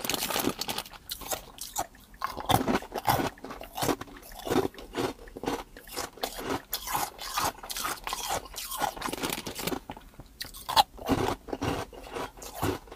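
A person chewing hard ice cubes: a rapid, irregular run of sharp crunches and cracks as the ice breaks between the teeth, with one louder crack late on.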